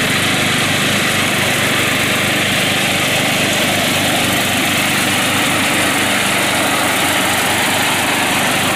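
Murray 12 hp riding lawn tractor's engine running steadily under load while its 40-inch deck cuts grass. It holds a constant drone without revving up or down.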